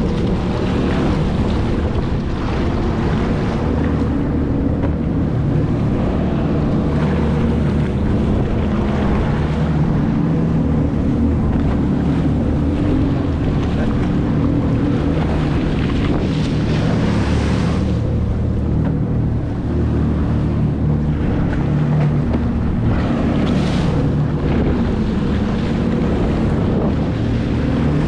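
Yamaha WaveRunner jet ski engine running steadily under way, with water rushing and spraying around the hull and wind buffeting the microphone; spray hisses louder twice, around the middle and about two-thirds of the way through.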